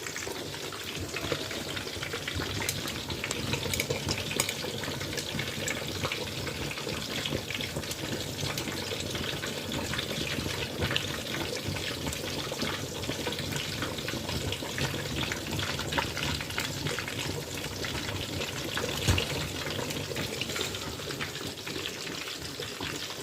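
Plantain frying in hot oil: a steady sizzle with many small crackles.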